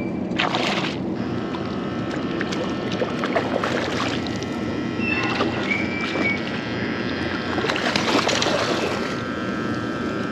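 Water sloshing and splashing around a wading angler as he moves through shallow saltwater, with louder splashes about half a second in and again around eight seconds in.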